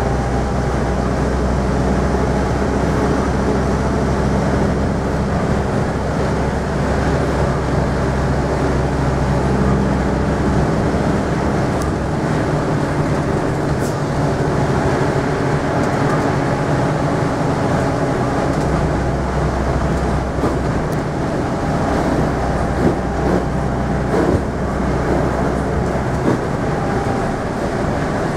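Scania N230UD double-decker bus's five-cylinder diesel engine working hard at road speed, heard from inside the passenger saloon as a loud, steady drone whose pitch shifts a couple of times. A few short knocks and rattles from the bodywork come about two-thirds of the way through.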